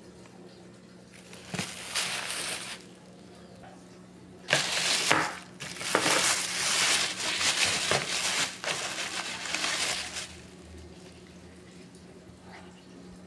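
Plastic shopping bags rustling and crinkling as they are handled, in two spells: a short one about a second in, then a longer, louder one from about four and a half to ten seconds.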